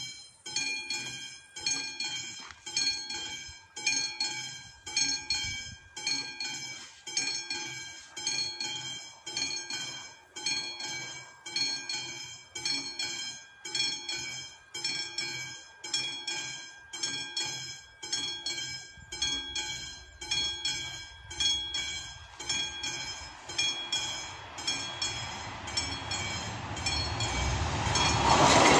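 Level-crossing warning bell, a classic bell on the VÚD warning signal, starting to ring and striking over and over in a steady rhythm to warn that a train is coming. From about two-thirds of the way in, a low rumble grows louder as a ČD class 854 diesel railcar set approaches the crossing.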